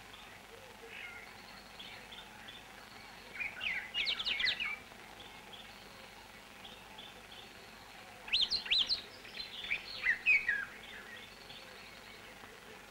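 Birds singing: two bursts of quick, high sweeping whistles and trills, about four seconds in and again from about eight to eleven seconds, with softer chirps in between.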